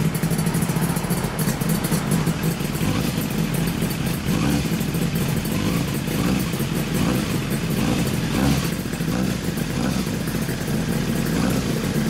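1997 Yamaha FZ400's inline four-cylinder engine idling steadily through an Asahina Racing Exhaust-Tech Wangan Special aftermarket muffler.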